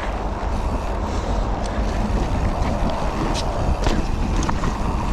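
Mountain bike riding fast down a dirt trail: wind rushing over the action camera's microphone with tyre noise, and a few sharp rattles of the bike over bumps.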